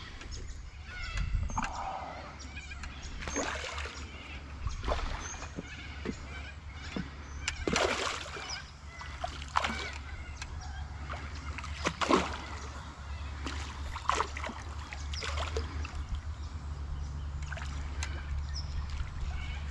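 A hooked carp splashing and thrashing at the water's surface in irregular bursts while it is played on a light line, over a steady low hum.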